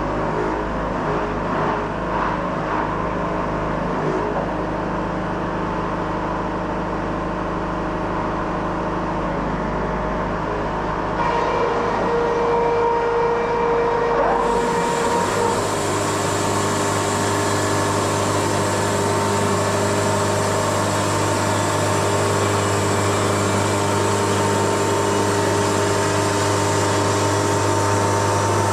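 Wood-Mizer LT70 sawmill running steadily. About eleven seconds in its sound changes, and a few seconds later its engine note steps up and holds higher and steady.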